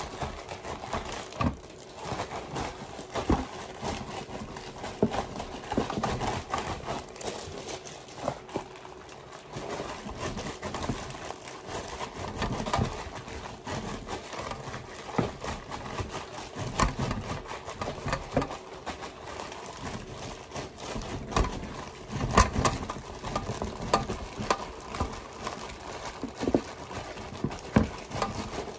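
A hand in a plastic-bag glove working ground-beef meatloaf mixture in a metal loaf pan: irregular crinkling and rustling of the plastic with scattered light taps and knocks against the pan.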